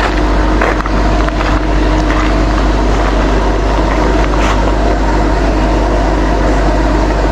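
A motor running steadily, a continuous mechanical drone with a deep rumble underneath.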